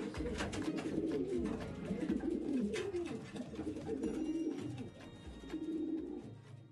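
Several pigeons cooing in a small loft, low wavering calls overlapping one another, with scattered clicks and rustles; the sound fades near the end.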